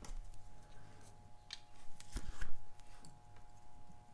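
A few small, sharp metal clicks and taps of watchmaker's tools on a wristwatch case and movement during reassembly. The loudest pair comes a little past halfway, over a faint steady hum.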